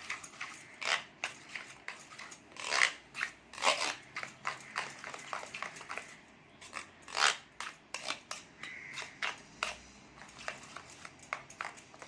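Eggs being beaten in a bowl with a hand utensil: quick, irregular clicking and tapping against the bowl, a few strokes a second, with a few louder knocks.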